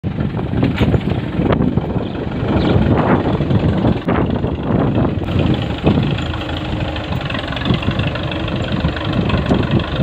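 Farm tractor engine running as it pulls a tine cultivator through the soil, with irregular knocks and rattles over the steady engine noise.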